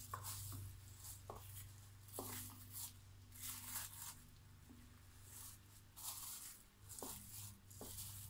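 Faint, irregular swishing and scraping of a spoon being swirled through thick cold-process soap batter in plastic-lined loaf molds, with a few small clicks. A low steady hum runs underneath.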